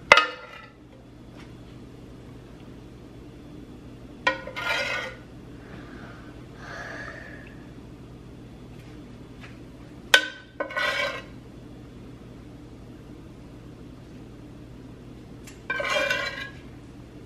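A metal ladle clinking against a nonstick pan and scraping out red enchilada sauce: three sharp clinks, each followed by a brief scraping rattle, and one more scrape near the end.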